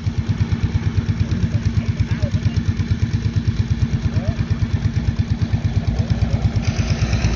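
Steady low machine hum with a rapid, even pulse of about ten beats a second, like a small motor running.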